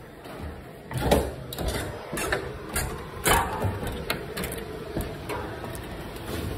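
Footsteps and irregular knocks and clatter of someone climbing a wooden pull-down attic ladder, starting about a second in.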